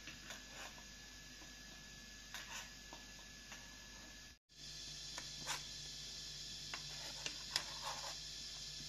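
Quiet handling noises: scattered small clicks and taps over a steady hiss. The background changes abruptly a little over four seconds in, with a low steady hum after it.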